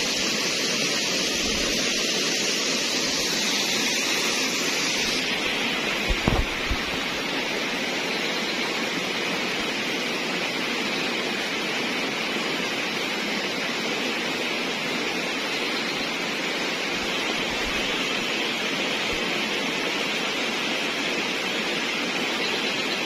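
Steady rush of flowing water. A higher hiss on top of it cuts off abruptly about five seconds in, and a few short knocks come about a second later.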